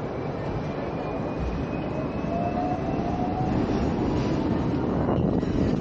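Hong Kong double-decker electric tram running along its track, heard from the upper deck, with a faint whine that rises slightly in pitch as the running noise grows louder.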